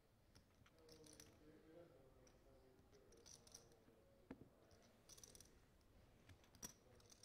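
Near-silent table ambience with faint, scattered clicks of clay poker chips being handled and a faint murmur of voices.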